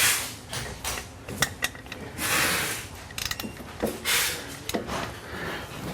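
Hand tools tightening the top nuts of sway bar end links: scattered metal clicks and clinks, with two short rasping stretches of ratcheting, about two seconds in and about four seconds in.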